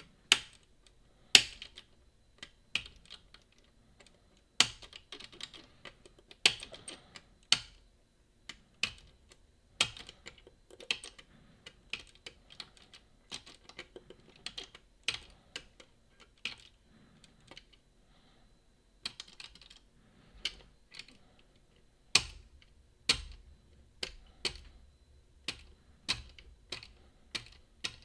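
Lever-lock picks clicking and tapping against the levers inside a Boda 429 eight-lever deadbolt as it is being picked. The clicks are sharp and irregular, one to three a second, with a short lull about two-thirds of the way through.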